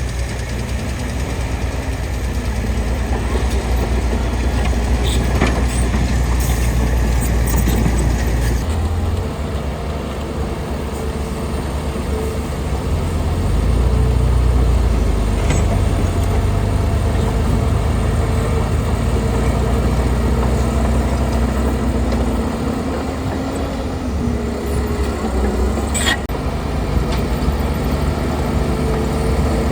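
Heavy diesel engine of a large earthmoving machine running steadily with a deep low rumble. The sound shifts abruptly about nine seconds in and swells for a couple of seconds a little later, with a single sharp knock near the end.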